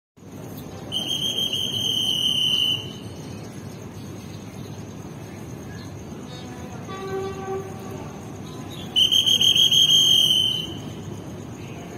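A trilling whistle, blown twice for about two seconds each time, and a short, faint horn blast from the approaching Alsthom diesel-electric locomotive between the two. A steady high insect chirr lies underneath.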